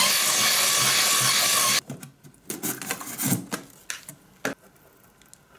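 Small cordless drill running as its bit bores an air hole through a styrofoam box lid. It cuts off abruptly about two seconds in, followed by scattered light rubs and a few sharp knocks.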